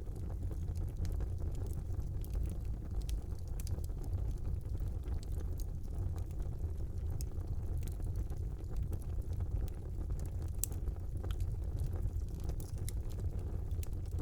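Wood fire burning in a fireplace: a steady low rumble of flames with scattered crackles and pops, one sharper pop about ten seconds in.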